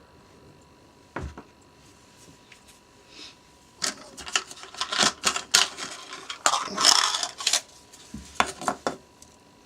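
Small metal parts of a Mikuni carburettor being handled on a workbench, clinking and rattling. There is a single knock about a second in, then a dense run of clicks and clinks for about four seconds, and a few more near the end.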